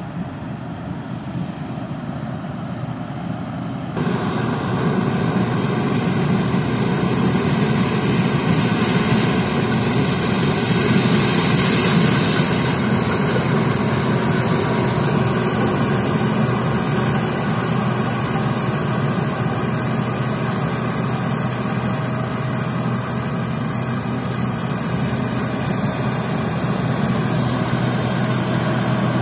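Case IH Axial-Flow 2388 combine running steadily while harvesting corn: engine and threshing machinery together. The sound jumps louder about four seconds in, then holds steady as the machine comes out of the standing corn and passes close by.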